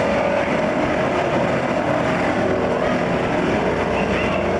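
Twin-propeller airplane engines running steadily, with a dense, even engine hum.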